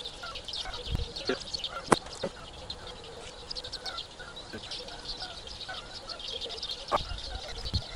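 Many small birds chirping continuously in a dawn chorus, with a few sharp clicks, the loudest about two seconds in.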